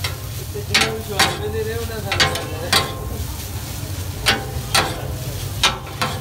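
Street-food cooking: about eight sharp knocks of cooking utensils, irregularly spaced, over steady sizzling and a low hum.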